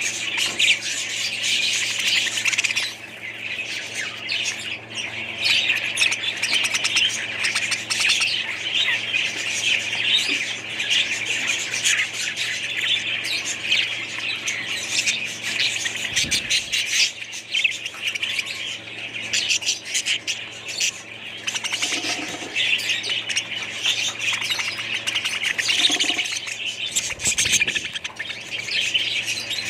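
Many small pet birds chattering and squawking nonstop, a dense chorus of overlapping calls.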